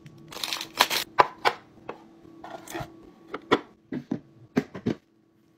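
Plastic food packaging crinkling in the hands, then a hard plastic storage container tapped and set down on a countertop, giving a quick series of sharp clicks and knocks.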